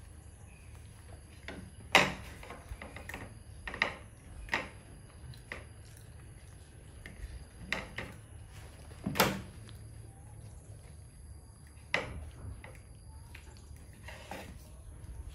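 Scattered short knocks and rustles, several seconds apart, the loudest about two seconds in and just after nine seconds: a baby macaque scrambling about on a lap and a wooden table while being fed.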